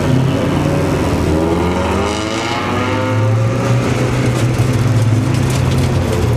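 A car engine heard from inside the cabin, pulling slowly in low gear. Its pitch drops about two seconds in, then runs at a steady low note.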